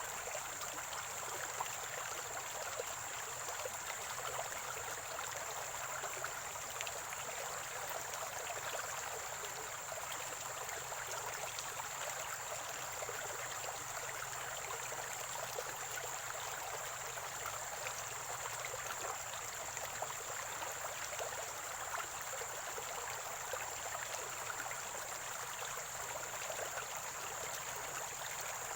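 A small spring-fed stream gurgling and trickling steadily, with a steady high-pitched whine above the water.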